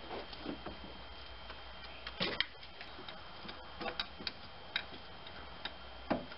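Scattered metallic clicks and taps of a hand wrench working a fastener on a car's fuel rail, coming a few at a time at irregular intervals.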